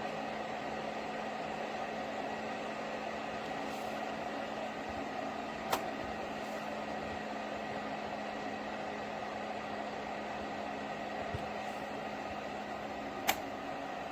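Portable ceramic space heater's fan running with a steady whir and a low hum, with two sharp clicks, one about six seconds in and one near the end.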